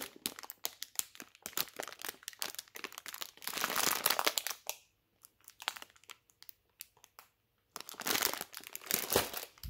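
Clear plastic produce bag of Brussels sprouts crinkling as it is squeezed and turned in the hand. It comes in irregular bursts, with two short pauses around the middle and a louder burst near the end.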